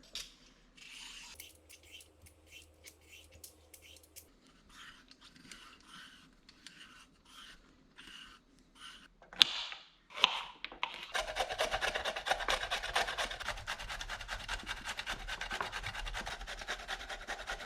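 A hand vegetable peeler scraping along a raw vegetable in separate strokes, a little under one a second. After a sharp knock about nine and a half seconds in, a faster, continuous rasping of the vegetable being scraped runs on.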